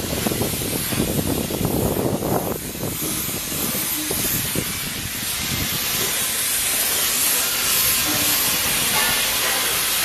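Steady hiss of coating spray equipment spraying, over an uneven low rumble.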